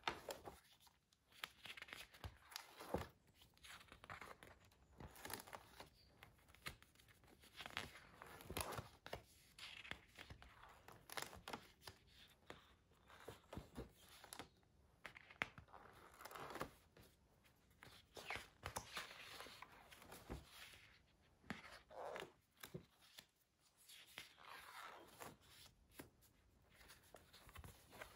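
Pages of a spiral-bound sketchbook being turned by hand: a quiet, irregular run of paper swishes and rustles with small clicks as the sheets flip over and settle.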